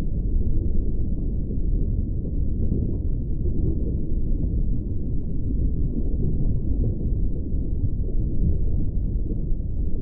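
Muffled underwater rumble: a steady, deep rush of water heard through a submerged camera's housing, with all the higher sounds cut away.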